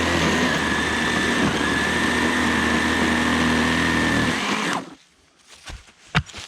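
Electric chainsaw running steadily with a high whine, then cutting off suddenly about four and a half seconds in; a few knocks follow, one sharp one near the end.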